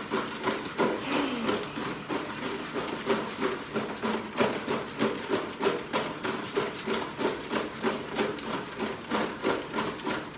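Close-up chewing and mouth sounds of someone eating, a steady rhythm of about two to three chews a second.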